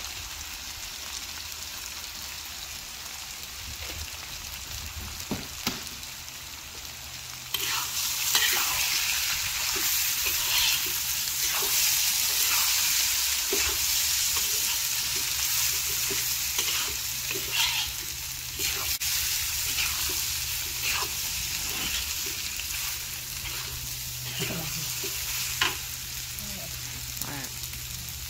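Rice frying in a wok, sizzling, with a metal spatula scraping and tossing it against the pan. From about eight seconds in, the stirring gets busier and the sizzle louder, with frequent scrapes and clicks.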